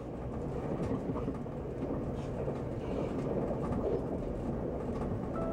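Running noise inside a 783 series limited express train car: a steady rumble of wheels on rail and running gear, with faint light ticks. At the very end the first tone of the conductor's hand-operated chime begins.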